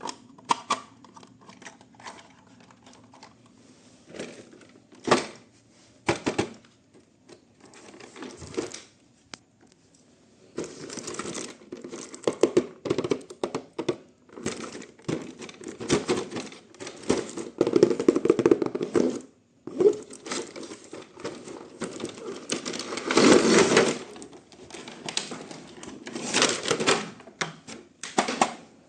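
Toy packaging being handled and opened: scattered clicks and knocks at first, then long stretches of crinkling and rustling of plastic and cardboard.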